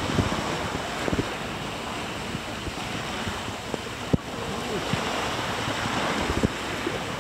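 Small waves breaking and washing on a shingle beach, with gusty wind buffeting the microphone in low thumps.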